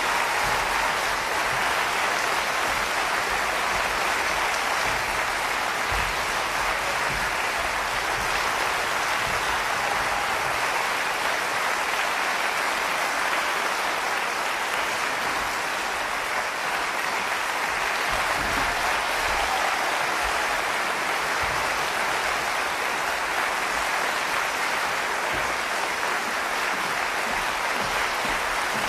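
A large theatre audience applauding steadily, a dense even clatter of many hands clapping.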